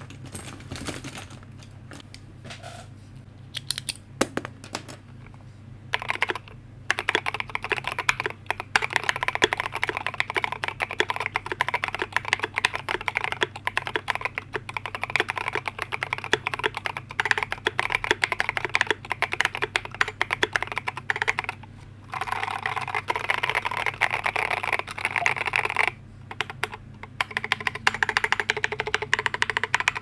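Typing on a Tokyo60 60% mechanical keyboard with Alpaca linear switches and high-profile MT3 keycaps. A few scattered keystrokes give way, about six seconds in, to fast continuous typing, broken twice by short pauses. A faint steady low hum sits underneath.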